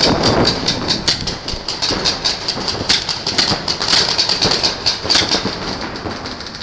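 Paintball markers firing in rapid, irregular volleys across the field, a dense run of sharp pops several per second.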